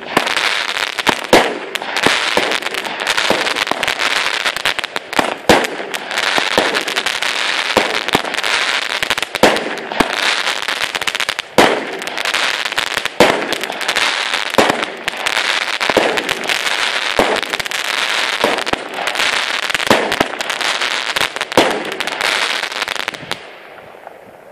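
A 16-shot firework cake firing golden crackling-tail shells that burst into dragon eggs: a sharp bang about every second and a half over a continuous dense crackle. The crackling dies away near the end.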